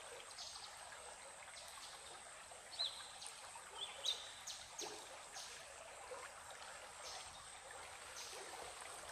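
Faint steady rush of a forest stream, with a few short bird chirps about three to four seconds in.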